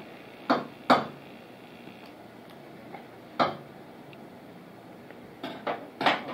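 Short clicks and taps of a plastic baby spoon against a food container during spoon-feeding: two in the first second, one near the middle and three quick ones near the end, with quiet room tone between.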